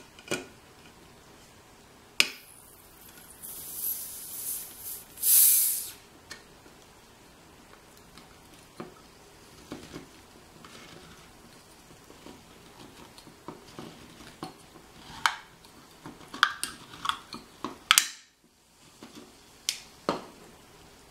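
Handheld manual can opener on a sealed Coca-Cola can: a sharp click as the cutting wheel bites into the lid, then a few seconds of loud hissing as the carbonation escapes through the cut. Irregular clicks and ticks follow as the opener's key is turned and the wheel works around the rim.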